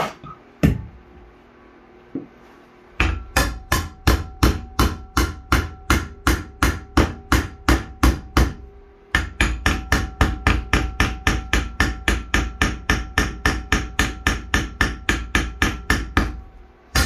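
Hammer blows on a torch-heated steel rod clamped in a bench vise, bending it: a single strike, a pause of about two seconds, then a steady run of quick blows, about three a second, with a short break about halfway. Each blow leaves a ringing metallic note.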